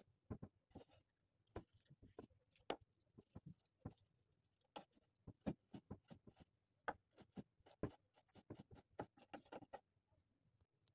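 Kitchen knife chopping a red bell pepper on a wooden cutting board: a series of sharp, irregular knocks, sparse at first and coming faster in the second half, stopping about a second before the end.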